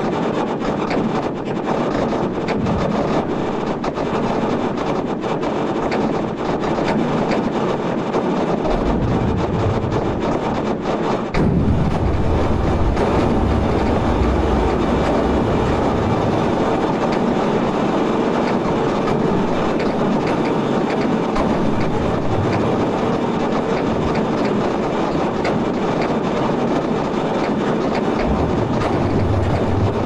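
Seismic sonification: earthquake recordings of seven years of Sumatra seismicity sped up into audible sound, heard as a dense crackle of countless small clicks over a continuous rumble. About eleven seconds in it jumps louder and deeper.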